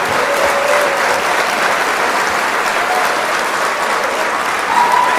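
A large crowd applauding steadily in a standing ovation, used as a wake-up alarm at the end of a nap timer.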